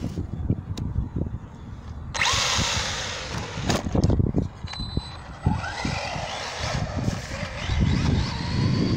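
Arrma Senton RC short-course truck's electric motor whining in bursts as the throttle is worked, rising and falling in pitch like a drill. There is a burst of hiss about two seconds in and low rumbling throughout.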